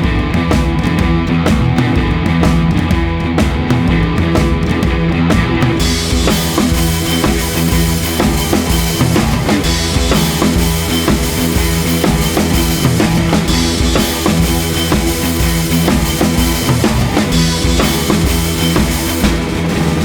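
Rock background music with a steady drum beat and guitar, the full band coming in about six seconds in.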